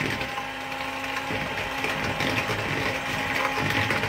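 Electric hand mixer running at a steady speed, its beaters whirring through creamy cake batter with a constant motor whine.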